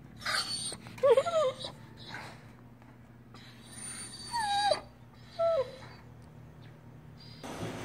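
Doberman Pinscher whining in several high, wavering cries that slide up and down in pitch, with short pauses between them.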